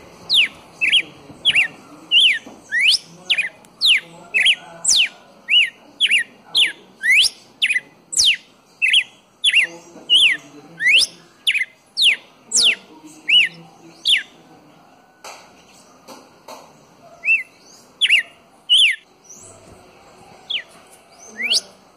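Red-cowled cardinal calling: a fast run of loud, sharp whistled notes, each sweeping quickly up or down, about two a second, thinning out to scattered single notes after about fourteen seconds.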